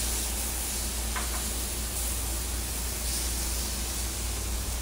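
Steak, chicken and vegetables sizzling on a hot Blackstone flat-top griddle: a steady hiss over a low hum, with a faint click about a second in.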